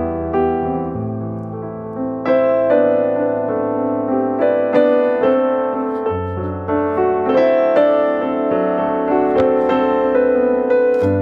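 Background piano music: a gentle electric-piano melody over sustained chords.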